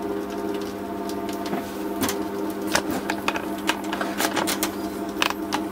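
A microwave oven transformer overdriving a desk fan at about 2000 volts makes a steady electrical buzz. Irregular sharp crackles from the smoking, overloaded transformer and wiring sound over it, more of them from about two seconds in.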